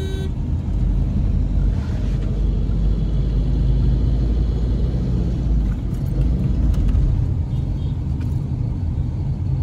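Steady low rumble of a car driving on a town road, heard from inside the cabin. A short horn toot sounds right at the start.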